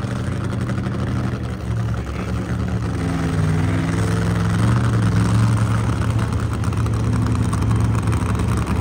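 Drag-race car engine running, mostly idling, with a few short revs that rise in pitch and get a little louder about three seconds in.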